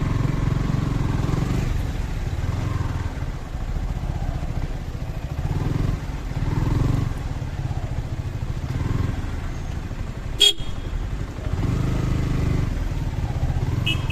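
Road traffic: vehicle engines running, with motor sounds that swell and fade, and one brief horn toot about ten seconds in.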